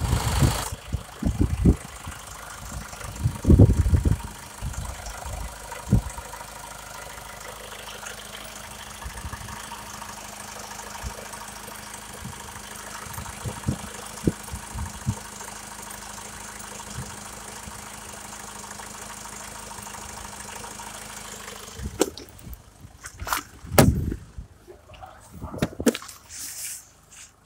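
Honda CR-V's 2.2-litre i-DTEC four-cylinder turbo-diesel idling steadily, heard from the open engine bay, with low bumps in the first few seconds. About 22 seconds in, the steady engine sound drops away and a few knocks and thuds follow.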